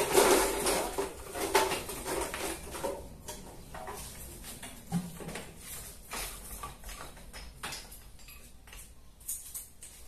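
Pieces of firewood knocking and clattering against a metal basin and each other as they are laid into the firebox of a brick wood-burning stove. A dense run of knocks in the first three seconds, then sparser, lighter knocks.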